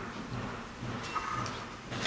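Faint handling noise as a compression tester's hose is moved over an engine's valve cover, with a small click about one and a half seconds in, over a low hum that pulses about twice a second.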